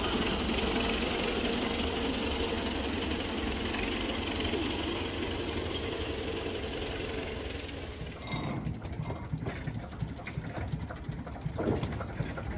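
Narrow-gauge locomotive engine running steadily. About eight seconds in, the sound changes to a quieter idle with a rapid, even knock.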